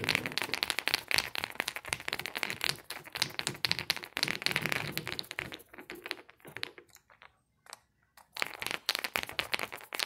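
Screwdriver turning the cover screws into an air compressor pressure switch by hand: rapid, dense clicking and scraping of metal and plastic. It stops for about a second near the end, then starts again.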